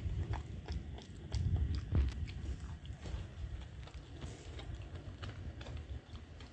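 A dog eating rice and cooked food from a stainless steel bowl, heard close up: chewing with an irregular run of small clicks over a low rumble, busiest about a second and a half in.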